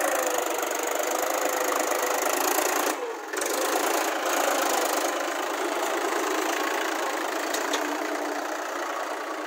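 Mahindra 275 DI tractor's three-cylinder diesel engine running steadily as it pulls a trolley loaded with soil, with a brief dip about three seconds in.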